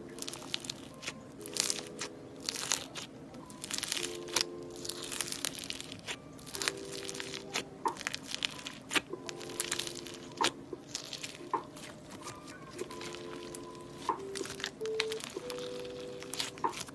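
Hands pressing and squishing crunchy iceberg-style slime packed with foam beads and chunky pieces: a dense, irregular crackling and crunching with occasional louder snaps. Soft background music with held notes plays underneath.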